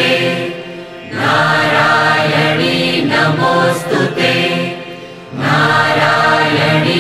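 A Sanskrit hymn to the Goddess chanted in a sung, melodic style, in long held phrases. Each phrase is separated by a brief drop, with new phrases starting about a second in and again around five and a half seconds.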